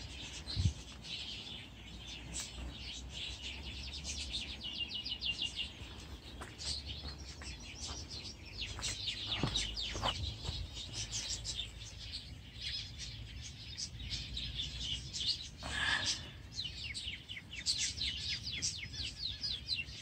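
Small birds chirping and twittering, with many quick runs of short high notes, over a low background rumble.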